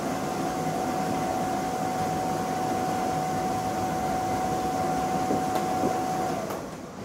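Bounce-house blower fan running loud and steady, a rush of air with one high whine held over it, blowing air through a 4-inch ribbed hose. It is switched off about six and a half seconds in, and the sound drops away.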